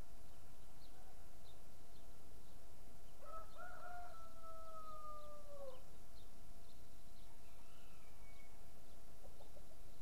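A rooster crowing once, a long call of about two and a half seconds that drops in pitch at the end, over faint, scattered chirps of small birds.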